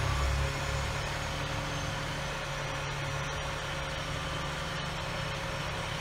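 Crane engine running steadily while it hoists a cut log section clear of the spar.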